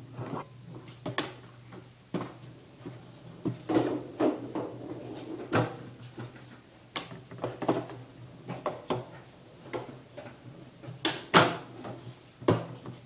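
Skateboard on a concrete floor: a string of sharp clacks and knocks as the board's tail and wheels strike the floor and a plywood sheet, the loudest about five and a half seconds in and again near the end.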